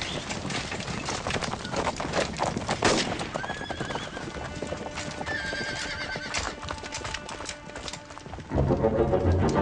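Horses' hoofbeats clattering, with horses neighing now and then. Music comes in loudly about a second before the end.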